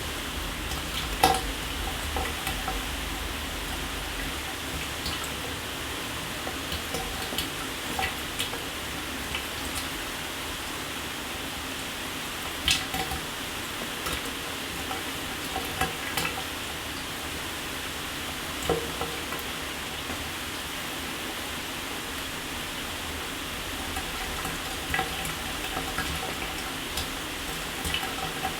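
Shower water spraying steadily, with scattered sharper splats and drips, the strongest about a second in and twice more later.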